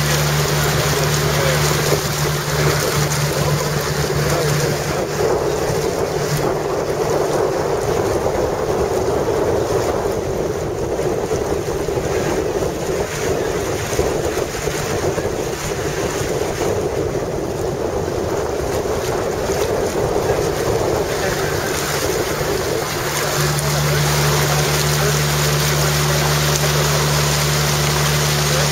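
Motorised wooden river boat's engine droning steadily underway, with water rushing past the hull. Wind buffets the microphone through most of it, masking the engine hum, which comes through clearly again near the end.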